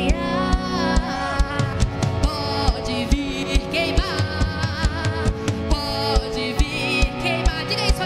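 Live worship band playing a gospel song: a singer's voice over guitar, bass and sustained keyboard tones, with a steady drum beat.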